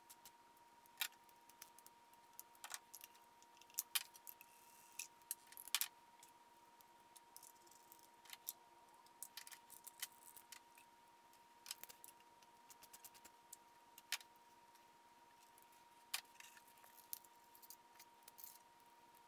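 Sparse, irregular light metal clicks and clinks of hand tools being handled around the engine bay during spark plug work, over near silence.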